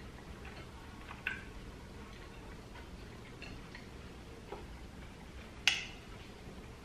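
A fork clicking against a plate of food, two sharp clicks about a second in and near the end, with fainter small ticks between.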